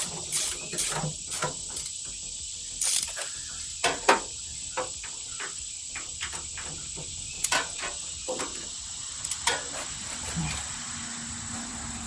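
Irregular sharp clicks and knocks, several a second in the first half and sparser later, over a steady high-pitched hiss.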